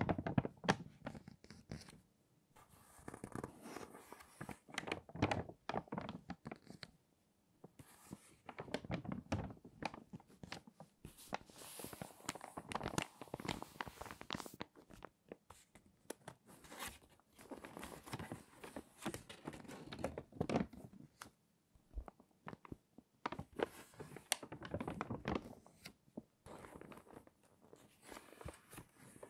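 Stiff, crinkly pages of a water-damaged magazine being turned one after another, the warped paper crackling and rustling with each turn. Short pauses come between the turns.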